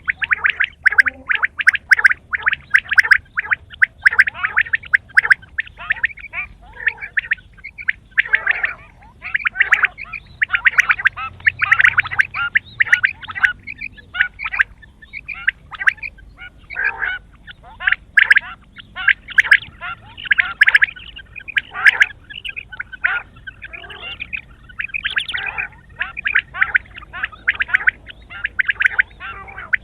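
Quail calling: fast rattling runs of many short notes in quick succession, in phrases of a second or more, broken by brief pauses.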